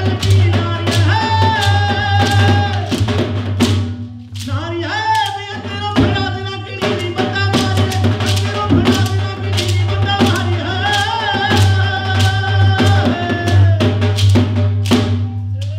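Live Malwai giddha folk music: a male voice singing long, bending held notes over dhol beats and the sharp clacks of wooden saap clappers, with a steady low hum underneath. The music drops briefly a little after four seconds, then picks up again.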